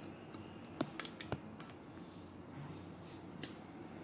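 A few short, sharp plastic clicks and light knocks as a personal blender's cup is handled on its motor base, most of them about a second in and two more after three seconds.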